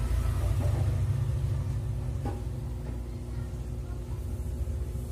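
Pot of water with onion and tomato boiling on the stove, a steady low rumble, with a faint click about two seconds in.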